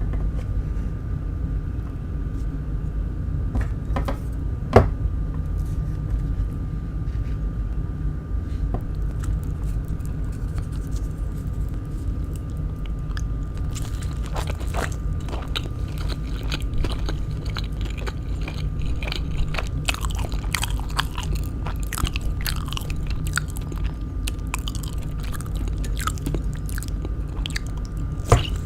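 Close-miked eating of kwek kwek, deep-fried battered quail eggs: bites into the fried coating and wet chewing, with many short mouth clicks that grow thicker from about halfway. A sharp click about 5 s in. A steady low hum runs underneath.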